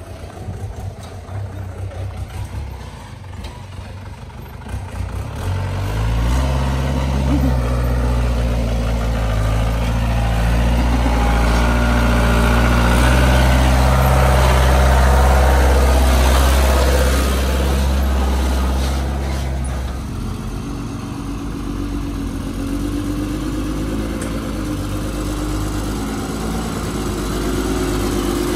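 Mahindra 4x4 jeep engine running as the jeep crawls through deep mud ruts. It gets louder as the jeep comes close about a third of the way in, and quietens after about twenty seconds. A heavier truck engine, the Tata 1212, builds near the end.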